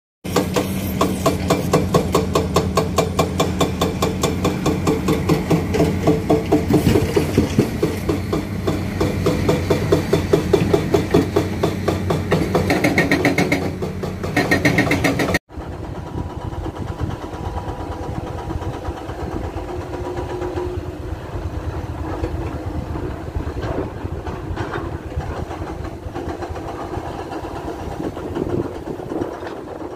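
Heavy diesel engine of an excavator running, with steady engine tones and a fast, even pulsing. About halfway there is an abrupt cut to a quieter stretch of engine noise.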